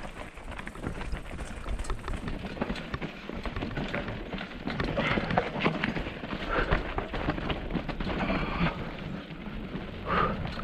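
Specialized Rockhopper mountain bike descending a rocky dirt trail: tyres crunching over loose stones and the bike rattling over bumps in a fast run of clicks and knocks, with wind rumbling on the helmet-mounted microphone.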